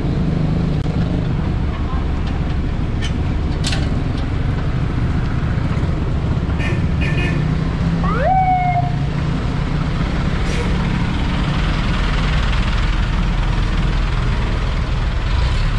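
Steady city street traffic with engines running. About eight seconds in, a single short siren whoop rises quickly and holds briefly. A few sharp clicks come a few seconds in.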